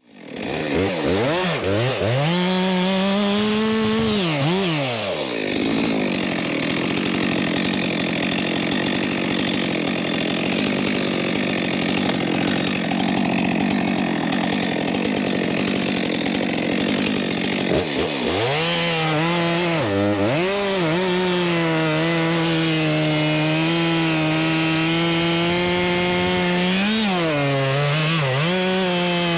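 Stihl chainsaw at full throttle cutting through a log: the engine revs up, then holds a loud steady drone as the chain bites, with a few brief drops and rises in engine speed as the throttle is eased and reapplied.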